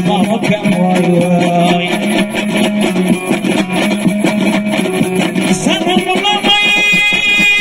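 Dambura, the Afghan two-stringed long-necked lute, strummed fast and steadily over its low droning string. Near the end a man's voice comes in with one long held sung note.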